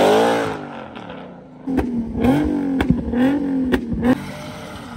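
A car engine revs high and falls away. After a short lull, an engine is held at high revs while its exhaust backfires with several sharp bangs, shooting flames out of the tailpipe.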